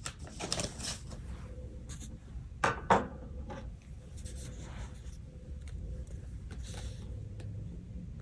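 Light paper handling: soft rustles and small taps of a sticker sheet and planner page as a sticker is peeled off and pressed down, with two sharper taps about three seconds in.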